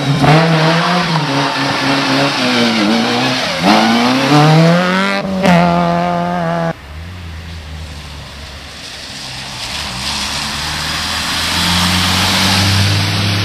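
Rally car engines at full throttle. First a car revs hard, its pitch dipping and climbing several times as it comes off and back onto the throttle through the gears, and cuts off suddenly about halfway through. Then a second car's engine is heard approaching, a lower note that grows gradually louder toward the end.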